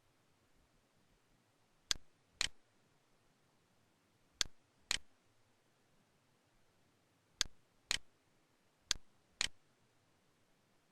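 Mouse-click sound effect from Camtasia's cursor sounds: four pairs of sharp clicks, each pair a click followed by a second about half a second later.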